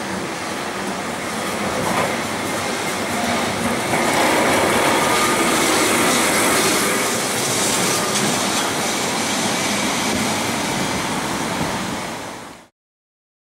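Lisbon historic electric tram running past on its rails, louder as it passes close by about halfway through, with its wheels squealing faintly on the curved track. The sound cuts off suddenly near the end.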